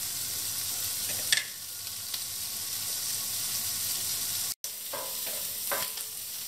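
Chopped green asparagus sizzling as it sautés in butter in a dark frying pan, with a wooden spatula clicking against the pan a few times as it is stirred. The sound cuts out for an instant partway through.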